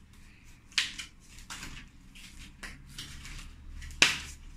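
Protective plastic packaging being pulled and torn off a new mini BMX: irregular crinkling and rustling, with a sharp snap just under a second in and a louder one about four seconds in.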